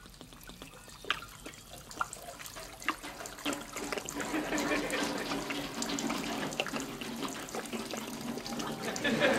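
Water running down a homemade downspout built from tin cans joined with duct tape: scattered drips and taps at first, then from about three seconds in a steady rush of water through the cans that grows louder.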